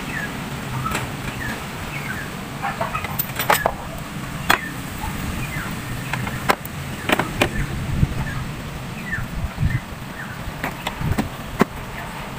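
Scattered sharp plastic clicks and knocks from hands unfastening and handling a car's plastic air filter housing, with short bird chirps in the background.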